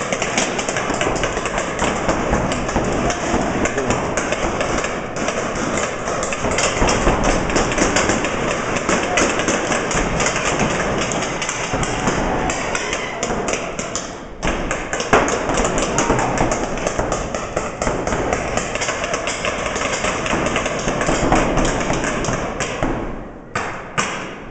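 Paintball markers firing rapidly from several players, the shots overlapping into a dense clatter of pops that echoes off the hall's concrete. It eases briefly about fourteen seconds in and again near the end.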